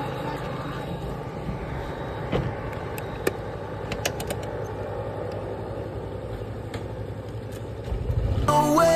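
Yamaha NMAX V2.1 scooter's single-cylinder engine running at a steady cruise, with road and wind noise and a few light clicks. Music comes in near the end.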